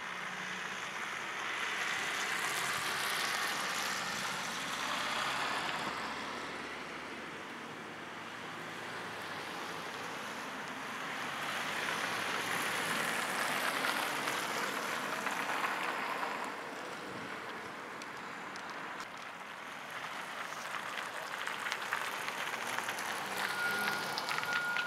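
Street traffic noise that swells and fades twice as vehicles pass, with a tram rolling into a stop. A steady high beep starts near the end.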